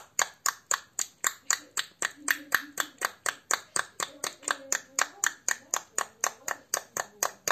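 Tongue clicking in the 'horse' articulation exercise: the tongue is snapped off the roof of the mouth in a fast, even clatter of about five clicks a second, like hoofbeats.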